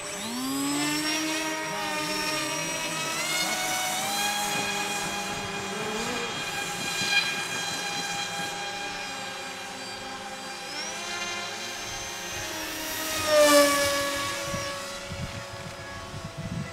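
Radio-control model's propeller motor whining, rising in pitch as it throttles up at the start, then shifting pitch up and down in steps. It swells to its loudest about 13 seconds in, with the pitch falling.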